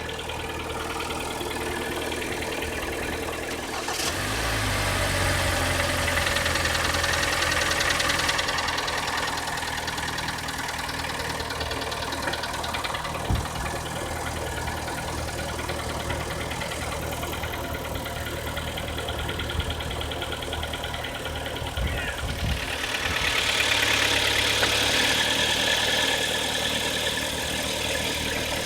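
Kia Sportage III engine idling with a knock, which the owner traced to scoring on the cylinder walls. It gets louder about four seconds in, with one sharp click around the middle.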